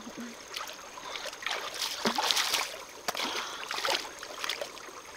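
Water splashing and trickling in irregular bursts, with a larger splash about two seconds in.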